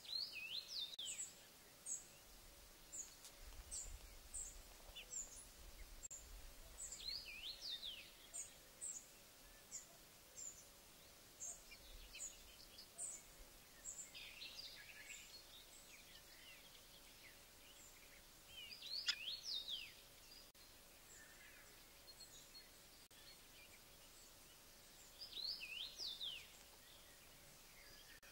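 Faint birdsong: a run of thin, very high chirps, one or two a second, that thins out about halfway through, and every five or six seconds a short, louder phrase of quick sweeping whistled notes.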